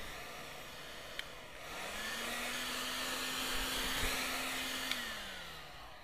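Electric heat gun blowing hot air onto a phone screen to soften the adhesive before the screen is pried off. About a second in there is a click and the fan motor spins up to a steady hum. Near the end another click and the motor winds down.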